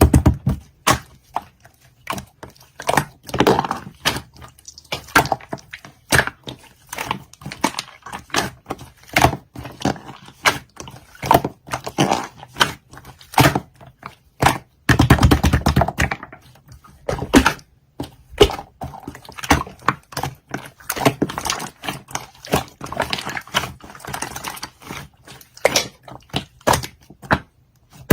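Quick, irregular taps and clicks throughout, with a longer, denser noisy stretch about halfway through.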